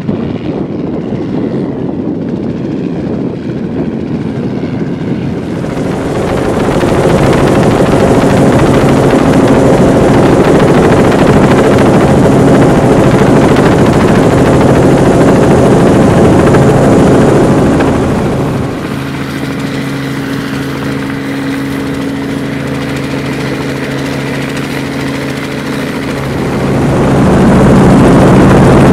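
Robinson R44 helicopter running continuously, with the whir of its rotor and the hum of its piston engine. It is heard first from the ground as it flies overhead, then from inside the cabin. The sound grows much louder about six seconds in, drops back for several seconds around the middle, and swells again near the end.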